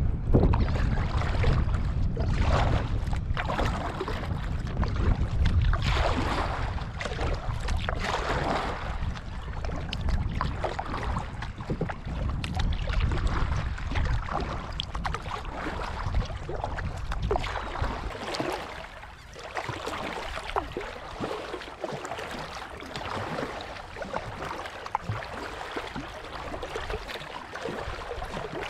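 Water splashing and lapping around a kayak as it is paddled over small ripples, with wind rumbling on the microphone. The wind rumble drops away about two-thirds of the way through.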